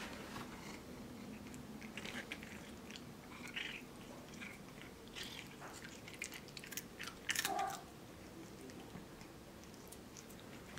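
A cat chewing and crunching treats eaten from a hand, with many small wet clicks and crackles. A short louder sound comes about seven seconds in.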